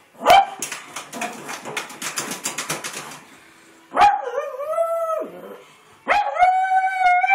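A pug barking and howling at another dog: one sharp bark at the start, a quick run of rapid clicks, then two long, drawn-out howls, the first about four seconds in and the second about six seconds in.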